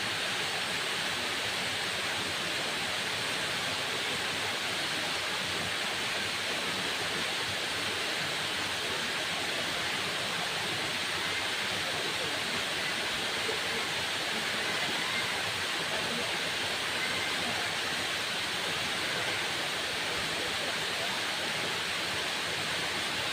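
Waterfall: water falling and rushing in a steady, even hiss.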